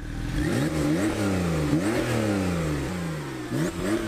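2017 Porsche 911 Carrera 4S's twin-turbocharged flat-six revved about four times through its exhaust, each rev rising quickly and falling away more slowly.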